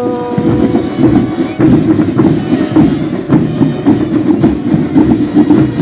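Marching band playing in a parade, with fast steady drumming over the band's other instruments.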